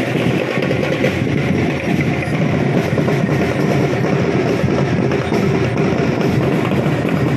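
Music with drums, playing continuously and loudly.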